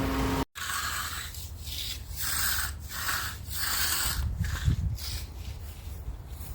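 Rhythmic scraping strokes of a hand tool worked back and forth over concrete, about one and a half strokes a second.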